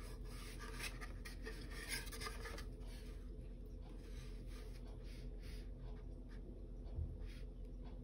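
A small paintbrush brushing acrylic paint onto a wood panel: soft, irregular scratchy strokes over a faint steady low hum.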